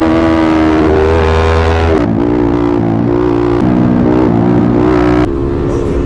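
Yamaha MT-15's single-cylinder engine with an aftermarket Akrapovic exhaust running hard at road speed, its pitch rising and then dropping about two seconds in.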